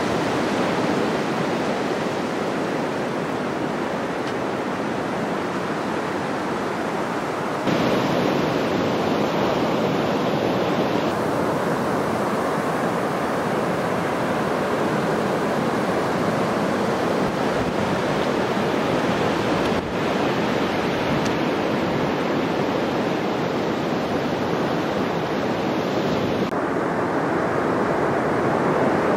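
Sea surf breaking and washing up a sandy beach, making a steady rushing noise that shifts abruptly in level a few times.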